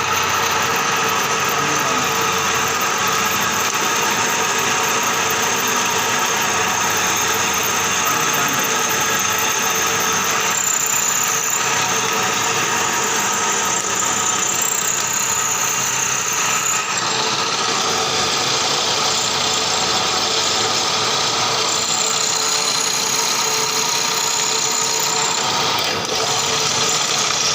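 Drilling machine running steadily as it drills a metal workshop job, a machine hum with several steady tones. A thin, high squeal comes in about ten seconds in and again past twenty seconds.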